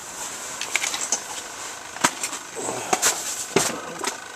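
Handling noise from a camera being moved about by hand: a scatter of sharp clicks and knocks with rubbing in between.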